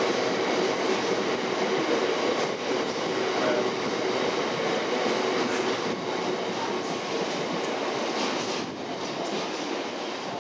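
A freight train's bogie hopper wagons rolling steadily past, their wheels running and rattling over the rails.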